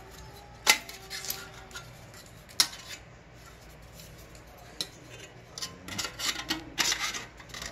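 Thin titanium panels of a folding wood stove clinking and rattling as they are slotted together by hand. A sharp clink comes about a second in and another near three seconds. A run of quick light clinks and scrapes follows near the end.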